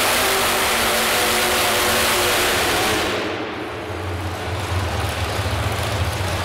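Small-block V8 pulling truck's engine at full throttle under the load of the sled, loud and dense. About three seconds in the throttle closes and the engine drops to a low idle rumble, marking the end of the pull.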